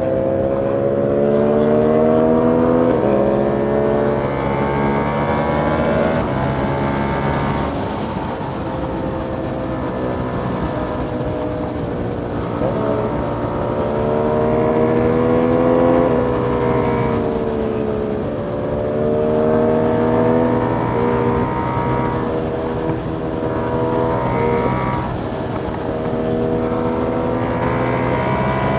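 KTM 890 Duke R's parallel-twin engine through an Austin Racing GP1R catless exhaust, revving hard and dropping back over and over. Its pitch climbs, then falls sharply at each shift or when the throttle closes.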